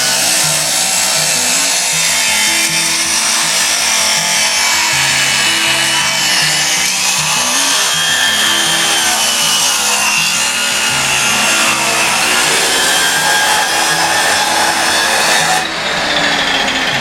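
Background music with a stepping bass line over the steady noise of a power saw cutting through wood.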